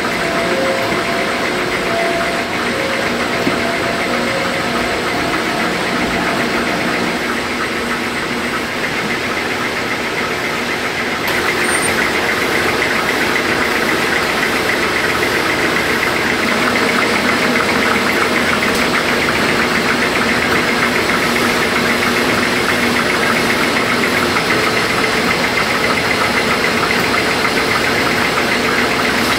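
Snack-factory dough machinery, a dough mixer and then a dough extruder, running with a steady mechanical hum and whir. The sound changes abruptly about eleven seconds in and again a few seconds later.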